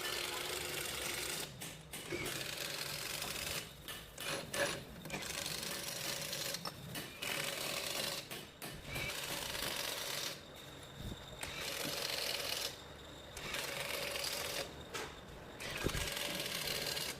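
A power tool run in about eight short bursts of one to two seconds each, with brief pauses between.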